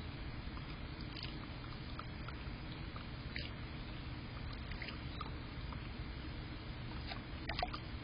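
Steady low hiss and rumble from a security camera's outdoor microphone, with a few faint short clicks and light splashes from a small bird bathing in a shallow plastic tub of water; the loudest splash comes near the end.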